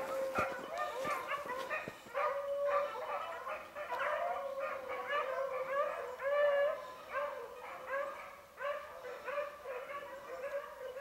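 A pack of beagles baying continuously on a rabbit's trail, several voices overlapping in drawn-out, bending howls.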